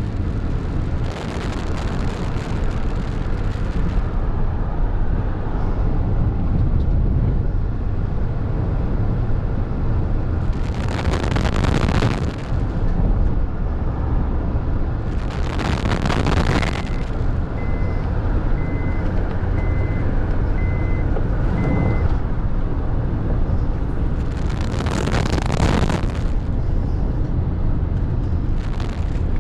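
Car on the road: a steady low rumble of engine and tyres, with several loud whooshes of traffic passing by. Partway through comes a short run of evenly spaced high beeps.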